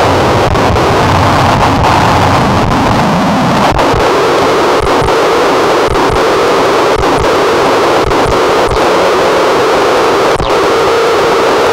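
Harsh noise wall: a loud, dense, unbroken mass of distorted electronic noise with scattered brief dropouts. About four seconds in, the low rumble thins out and the loudest band settles lower in pitch.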